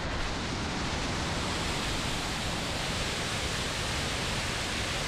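Tall waterfall pouring down a rock face: a steady, full rush of falling water.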